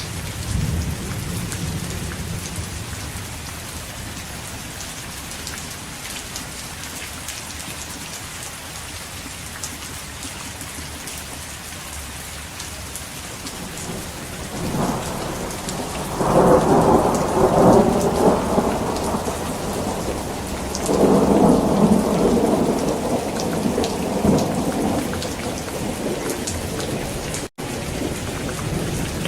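Heavy rain falling steadily, with thunder: a low rumble at the start, then two loud, long rolls of thunder from about halfway through, a few seconds apart. A split-second dropout cuts the sound near the end.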